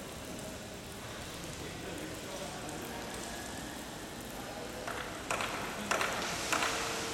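Steady patter of falling water from a rain-curtain fountain, thin streams dropping from a height into its basin. Several sharp clicks or knocks come in about five seconds in, with a faint steady tone near the end.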